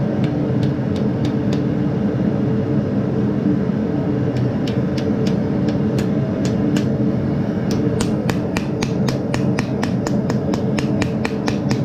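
Light hammer blows on a red-hot steel leaf laid on a wooden stump, driving it down into a hollow to give it depth. The taps come in runs over a steady low hum and speed up to about four a second in the last few seconds.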